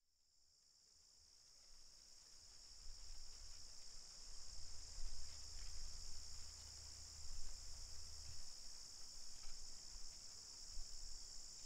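Insect chorus in a field, a steady high-pitched trill that fades in over the first few seconds, over a low rumble.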